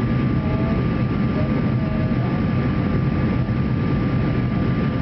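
Steady engine and airflow noise inside the cabin of a Boeing 737-300 climbing after takeoff, from its CFM56 turbofan engines, with a thin steady whine over it.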